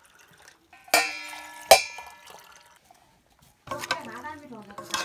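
Metal kitchenware knocked together twice, about three-quarters of a second apart, each knock ringing on briefly, the second one louder. A person's voice follows near the end.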